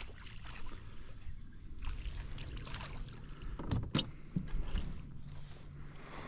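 Small smallmouth bass thrashing and splashing at the water's surface as it is reeled to a fishing kayak, with a few sharp splashes and knocks about four seconds in.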